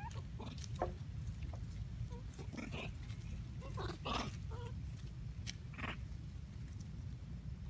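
Long-tailed macaques giving a few short calls, the loudest about four seconds in, over a steady low rumble.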